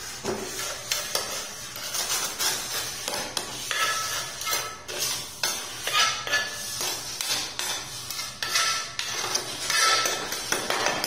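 Steel spatula scraping and smoothing tile adhesive across a ceramic floor tile joint, in repeated strokes about one or two a second. The blade scrapes on the glazed tile, with short high squeaks now and then.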